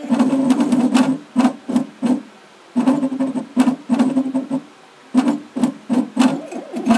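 Diamond-tip engraving machine cutting script into a pewter tankard in a rotary attachment: its motors hum in short stop-start moves, with sharp ticks between them and two brief pauses.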